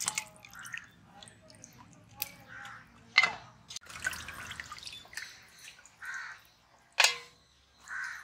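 Water dripping and splashing as raw chicken pieces are squeezed by hand and lifted out of a steel bowl of wash water, with two sharp slaps.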